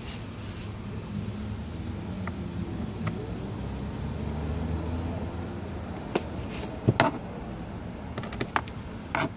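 Small sharp clicks and knocks of a screw and screwdriver being fitted to the glove box's damper strut, clustered in the second half, over a steady low hum.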